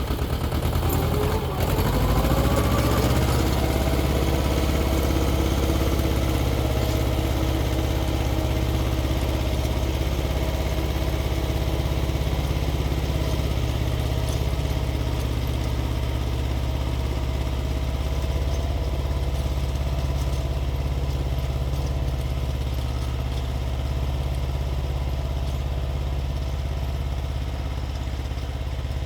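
Xingtai 220 mini tractor's diesel engine revs up over the first two or three seconds, then runs steadily under load, powering a 1.3 m rotary tiller.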